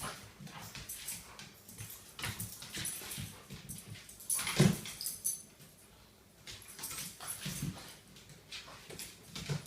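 Two dogs play-wrestling: a run of short, irregular dog noises, with one loud outburst about halfway through and a brief lull soon after.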